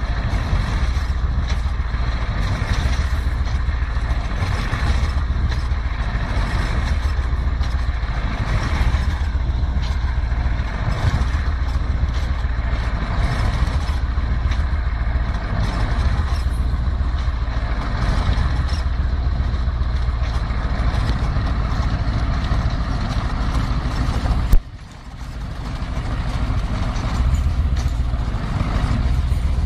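Heavy truck's diesel engine running hard under load while its wheels spin in deep snow. About 24 seconds in there is a sharp knock, the sound drops off suddenly, then builds back up over a couple of seconds.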